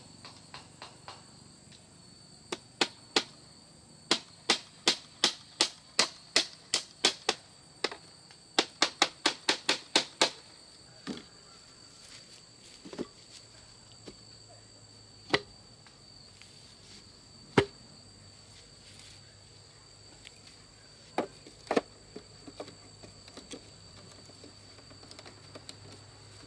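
A run of knocks on wood, about two to four a second, as a tool strikes a wooden gate post, followed by a few scattered single knocks. Insects trill steadily in the background.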